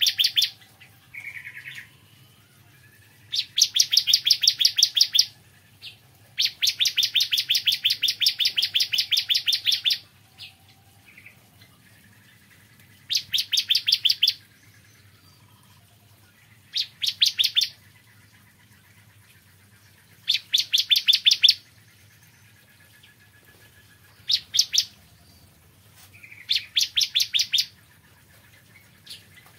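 Bar-winged prinia (ciblek kristal) singing: loud, rapid trills of quickly repeated chipping notes, given in bursts of one to three seconds with short pauses between them, about eight trills in all.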